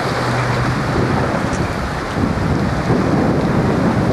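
Wind buffeting the microphone, with water rushing along the hull of a small sportsboat planing down the waves in a rough sea. The noise is loud and steady.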